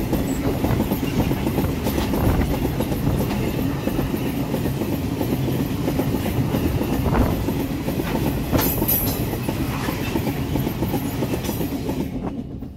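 Train of ore wagons rolling past close by: a steady rumble and rattle of wheels and bogies on the rail, with a few sharp clacks. It drops away suddenly near the end as the last wagon passes.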